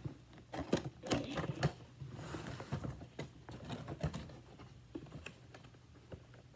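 Cardboard toy box and its packaging being opened by hand: a run of irregular clicks and crackles, with a short scraping rush about two seconds in.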